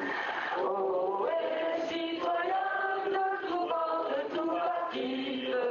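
Chant-like singing, with long held notes that step from pitch to pitch.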